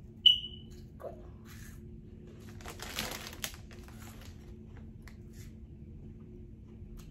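Crinkly chip bag rustling for about a second, a little past the middle, as a hand reaches in for Flamin' Hot Cheetos Puffs. Near the start there is a single short, high ringing ping, and a faint steady hum runs underneath.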